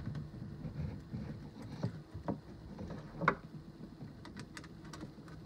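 Faint handling noise of a twist-lock plug and wire, with a few small clicks and ticks as a wire is seated in the terminal and a screwdriver turns the terminal set screw; the sharpest tick comes a little past the middle.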